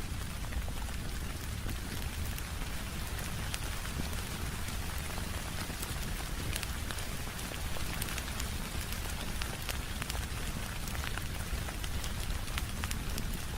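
Steady rain falling, with scattered sharp clicks and a low rumble underneath.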